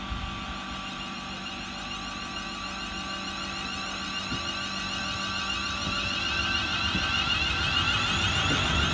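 Class 350 Desiro electric multiple unit's traction motors whining, several steady tones over a low rumble, slowly growing louder.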